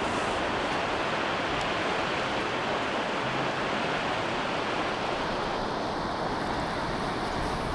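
Large waterfall rushing steadily, an even, unbroken wash of falling water.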